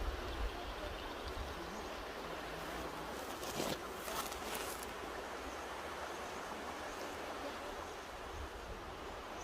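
Mountain river rushing steadily, an even, continuous water noise that swells briefly brighter around four seconds in.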